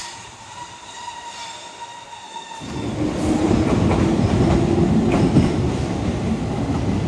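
Keihan 800 series train drawing in alongside the platform. A faint steady whine comes first, then about two and a half seconds in the rumble of its wheels on the rails swells loud and close, with a few sharp clicks of wheels over rail joints.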